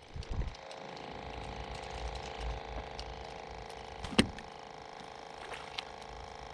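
Fishing reel being cranked, its gears clicking, over a steady hum, with a single sharp knock about four seconds in.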